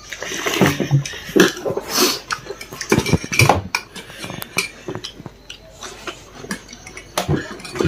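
Cutlery clinking against dishes as someone eats, an irregular run of sharp knocks.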